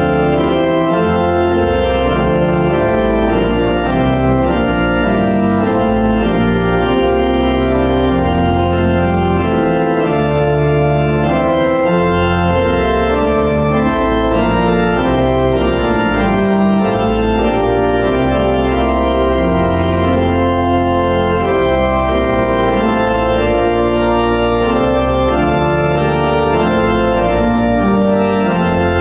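Church organ playing a hymn in loud, held chords over a low bass line that changes every second or so.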